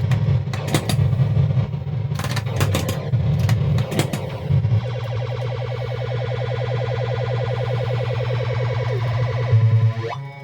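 Williams Flash pinball machine's electronic sound effects playing rough, over a loud low buzzing hum: the sound problem the machine has. Sharp clicks come through the first few seconds, then the tone steadies, and rising siren-like glides come near the end.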